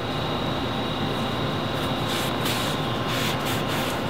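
Steady rumbling background noise, with a few short hissing swishes in the second half.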